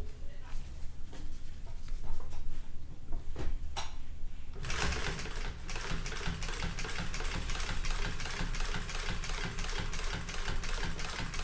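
Consew 206RB-5 walking-foot industrial sewing machine sewing a top stitch along a seam. About four and a half seconds in it starts running, a rapid, even rattle of needle strokes, after a few light clicks over a low hum.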